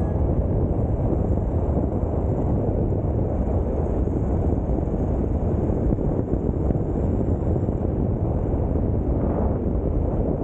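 Steady, loud wind rush buffeting the microphone while riding an electric mountain board at speed.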